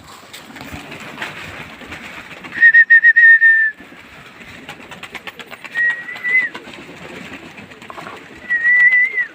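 Three loud whistled notes near the same high pitch: a warbling one about a second long a little before the middle, then two shorter ones later on, over a faint rustle of wind. Whistling like this is used to drive a pigeon flock up off the loft.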